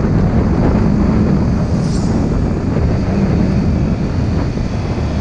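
Honda Supra GTR 150 motorcycle's single-cylinder engine running under heavy wind rush on the microphone as the bike slows down, easing off the throttle.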